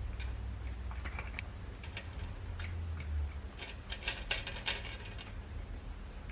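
Scattered small clicks and rustles of objects being handled, thickest a little past the middle, over a low steady hum.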